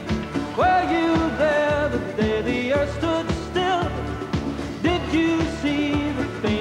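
Pop-country band music: a lead melody that bends and wavers with vibrato over a steady beat.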